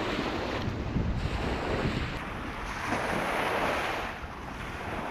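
Wind buffeting the microphone over the wash of surf on the shore, with a swell of hissing water about three seconds in.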